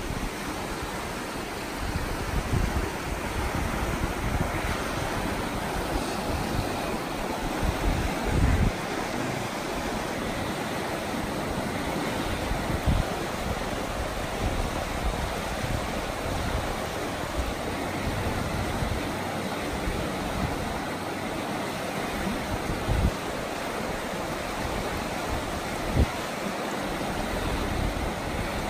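River water rushing over rocks and rapids, a steady, even hiss. A few brief low bumps of wind on the microphone break through now and then.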